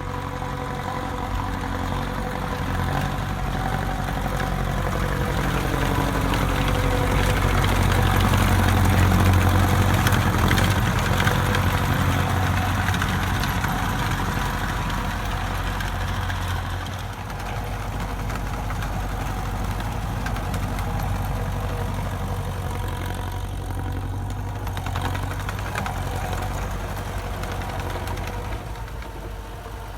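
DT-75 crawler tractor's diesel engine running steadily, getting louder for a few seconds near the middle and easing back down a few seconds later.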